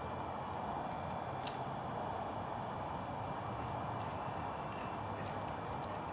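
Crickets trilling steadily over a constant background rush, with a couple of faint sharp clicks.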